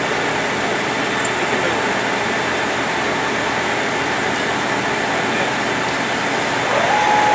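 Engine lathe running with a steady machine noise. Near the end, a brief tone rises and then holds.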